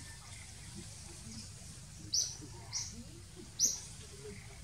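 Bird chirping in forest: three short, high chirps, about two, just under three and three and a half seconds in, over a low steady background hum.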